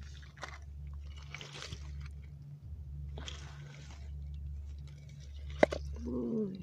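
Crunching, squelching steps over wet pebbles and rocks on a shoreline, over a steady low rumble. A sharp click comes near the end, followed by a brief falling vocal sound.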